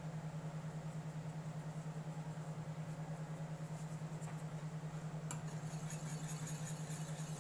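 A steady low hum with a regular pulse throughout. From about five seconds in, a wire whisk scrapes and clicks against a stainless steel saucepan as it stirs thick béchamel sauce.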